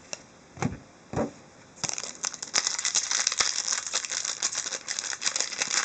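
Two soft knocks, then from about two seconds in, a hockey card pack's wrapper crinkling steadily as it is handled and torn open.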